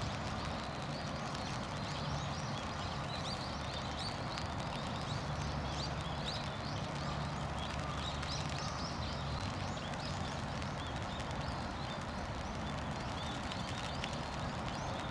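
Outdoor pond ambience: a steady hiss and low hum, with many short high chirps scattered throughout.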